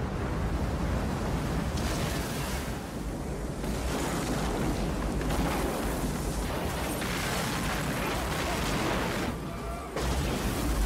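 Disaster-film sound effects of a giant tidal wave sweeping over a city: a dense, continuous rumble of rushing, crashing water. The sound dips briefly about nine seconds in, then comes back abruptly with the next shot.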